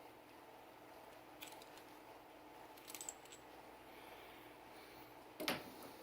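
Small clicks and a light metallic clink from handling the parts of a Sig Sauer P320 pistol, with a louder knock near the end, over a faint steady hum.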